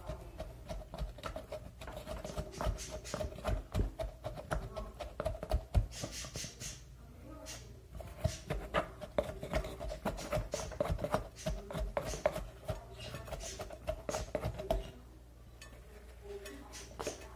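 Wooden pestle pounding and grinding dry powders in a small glass jar, mashing them into a paste: a quick run of knocks and scrapes of wood against glass, easing off near the end.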